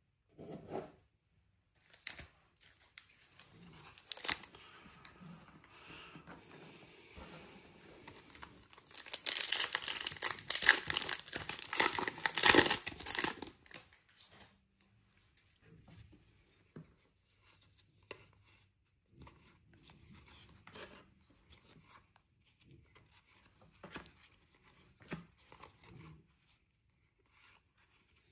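A trading card pack wrapper being torn open and crinkled, loudest for a few seconds around the middle, among soft rustles and clicks of cards being handled.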